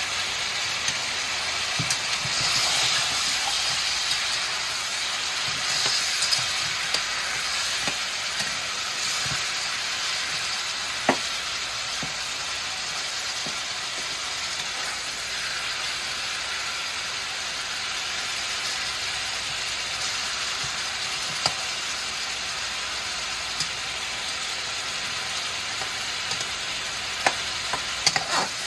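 Turkey neck pieces sizzling steadily as they sear in hot oil in an aluminium pan, with occasional sharp clicks and scrapes of a metal spatula as the meat is turned.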